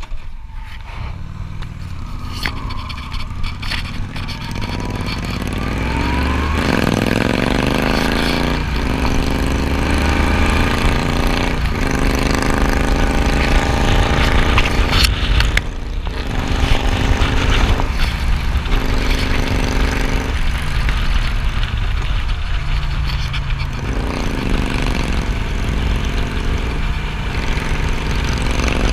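Cruiser motorcycle engine running at a standstill, then pulling away about six seconds in and accelerating up through the gears, its pitch rising and dropping back with each of several shifts, with wind noise building.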